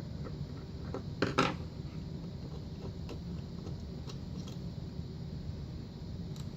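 Small metal lock parts being handled during disassembly: a short, sharp clatter of clicks about a second in, then a few faint ticks, over a steady low hum.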